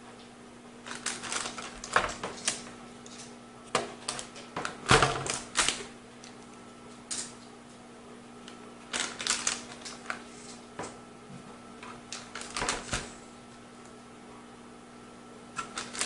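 Heatsink mounting pegs being handled and clamped down onto the motherboard: four clusters of sharp, rapid clicks and rattles, the loudest about five seconds in.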